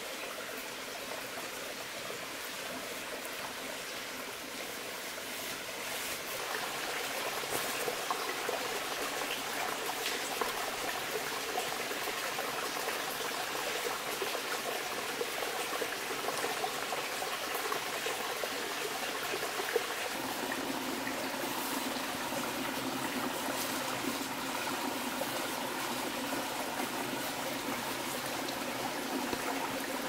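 Steady rush of running water, like a stream, that grows louder about six seconds in, with a few faint knocks over it.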